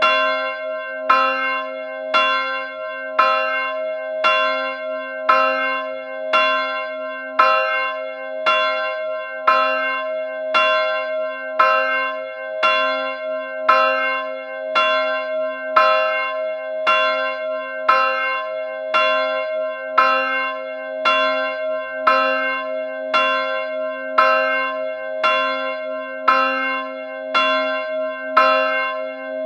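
A bell struck repeatedly, about once a second, at an even pace. Its tone keeps ringing between strikes, so the strikes overlap into a continuous hum.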